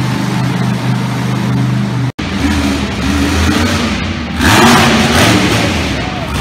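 Monster truck engine running and revving hard as the truck climbs a dirt ramp onto a crushed car, with a loud surge about four and a half seconds in. The sound cuts out for an instant about two seconds in.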